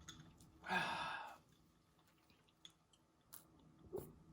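A short breathy sigh, then a few faint clicks and a soft tap.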